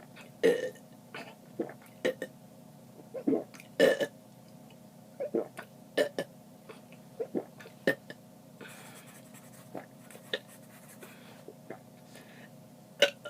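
A person burping over and over: about a dozen short, sudden belches with quiet gaps between, the loudest about four seconds in.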